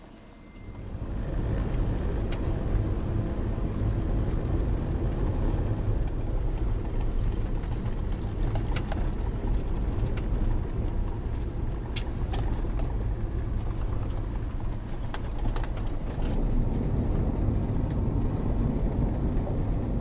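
Road noise inside a vehicle driving on a gravel road: a steady low rumble of tyres and engine that sets in about a second in, with a few sharp ticks scattered through it.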